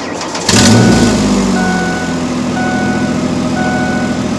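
A 2004 Ford Explorer's 4.0 V6 engine starts about half a second in, flares briefly, then settles into a steady idle. The vehicle's warning chime beeps about once a second throughout.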